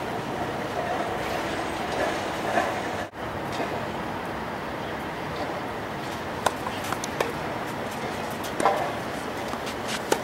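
Tennis ball struck by rackets and bouncing on a hard court: a few sharp pops spread over the second half, over a steady background rumble.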